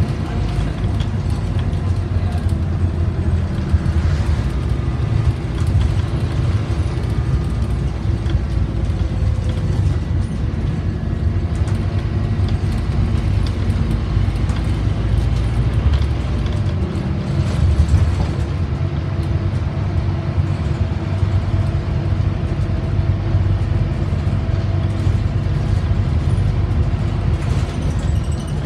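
Cabin sound of a Scania OmniCity bus under way: its nine-litre five-cylinder diesel engine running along with a steady low road rumble, and scattered small rattles and clicks from the bodywork.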